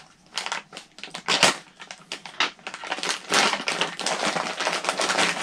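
Plastic parts bags crinkling and rustling as they are handled and pulled out of a cardboard kit box: a dense run of crackles and rustles.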